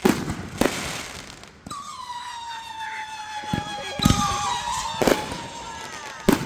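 Consumer fireworks going off: a couple of sharp bangs with crackle at the start, then a long steady whistle that drops slightly in pitch, with more bangs over it.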